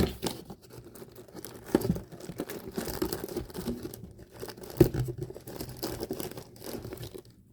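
Marshmallow advent calendar's packaging being torn open and crinkled by hand, with irregular rustling, scattered clicks and one sharper snap a little before the five-second mark. It is hard to get into.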